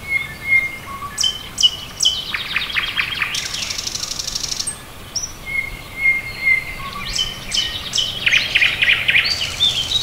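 Several songbirds singing at once: short whistled notes and fast trills overlapping, with a high, rapid trill in the middle and two dense trilling phrases near the start and near the end.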